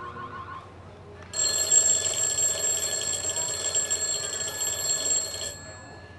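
An electric bell ringing continuously, like an alarm clock or telephone bell. It starts about a second in and cuts off about four seconds later.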